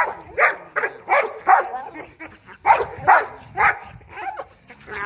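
A Boerboel and a Rottweiler barking in a rapid series of loud, short barks as they lunge on the leash at a decoy's bite sleeve: guard-dog protection barking, with a short pause about two seconds in.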